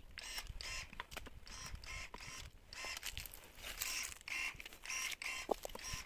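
Pruning shears cutting thin hazelnut shoots one after another: a quick series of short mechanical whirs and clicks, about two a second.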